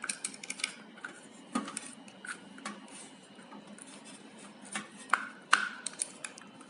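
Light clicks, taps and rubbing of hands working power cords through a floodlight's cable terminal, irregular and scattered, with a sharper click about five and a half seconds in.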